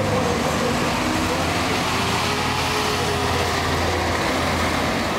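Engines of a column of classic cars rolling past at parade pace: a steady, mixed low engine hum with slowly shifting pitch and no hard revving.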